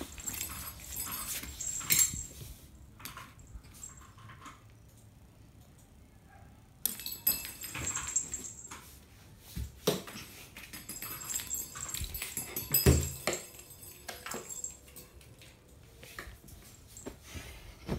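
A cat at play, batting a small ball and scrambling across a hard floor and bedding: scattered knocks, scuffs and rustling. There is a quieter lull of a few seconds and a sharp thump about two-thirds of the way through.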